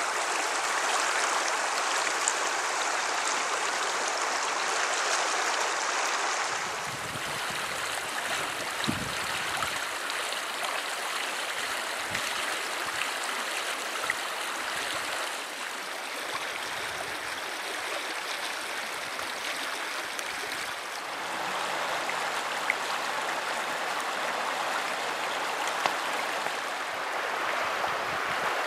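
Small river rushing fast over a shallow bed, a steady splashing flow with water churning around bridge piers and debris; the sound changes in tone twice as the view moves between stretches of the river.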